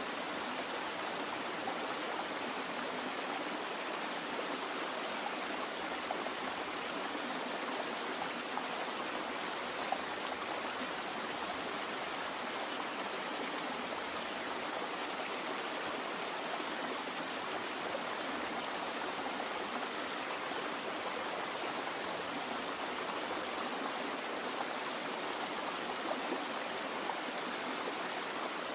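Flowing water running in a steady, even rush, like a stream.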